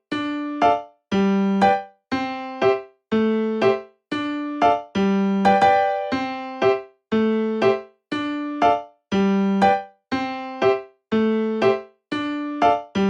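Background electric piano music: a slow repeating figure of single struck notes, about one a second, each fading out before the next.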